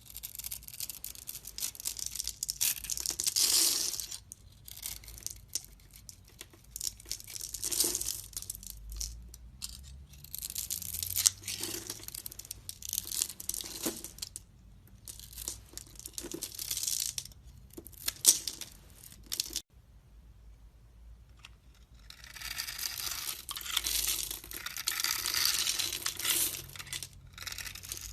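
A blade cutting and scraping through soap in a series of rasping strokes of a second or two each, separated by short pauses. There is a longer unbroken run of cutting near the end.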